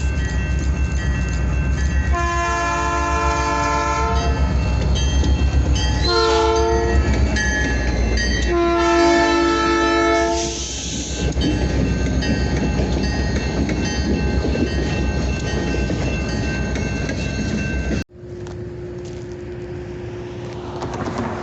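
Diesel switching locomotive running close by with a heavy low throb, its multi-note horn sounding three blasts: long, short, long. About three-quarters of the way through, the sound cuts abruptly to a quieter steady engine hum.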